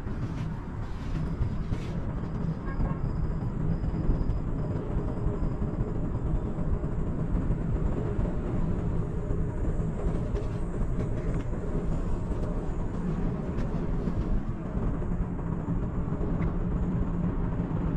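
Gondola cable car cabin in motion along its cable, heard from inside: a steady low rumble with a faint hum.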